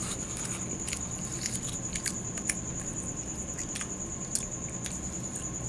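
A person chewing a mouthful of soft, doughy biscuit: irregular small clicks and smacks of the mouth, over a steady faint high-pitched whine.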